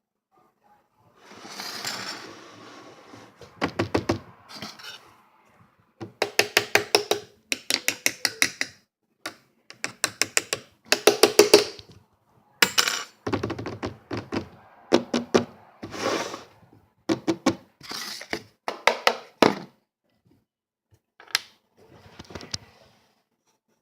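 Slime being made by hand: runs of quick clicks and knocks, several to a second, in bursts with short pauses between.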